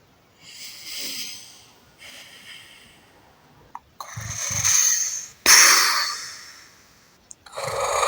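People snoring: a run of long snoring breaths one after another. A rumbling snore about four seconds in is followed by a sharp, hissing exhale that fades away.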